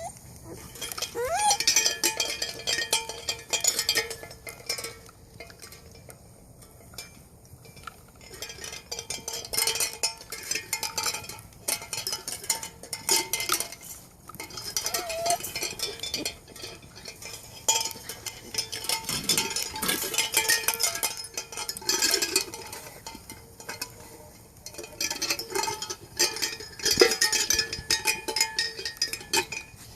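Chocolate Labrador puppies playing, with irregular clinking and clattering in bursts and a few short high squeaks.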